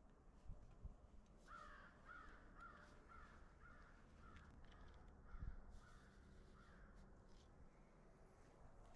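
A crow cawing faintly: a run of about ten caws at roughly two a second. There are also two soft low thumps, one just after the start and one about halfway through.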